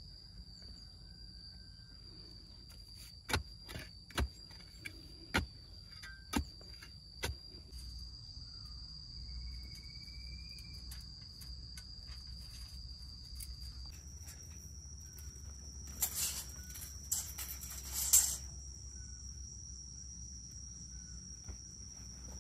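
Steady high-pitched drone of insects. About six sharp knocks come roughly a second apart a few seconds in, and a couple of bursts of rustling, scraping noise come about three-quarters of the way through.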